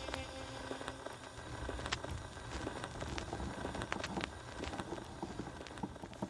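Gramophone record surface noise: steady crackle with scattered sharp pops and a low rumble under it. A held musical tone fades out about a second in.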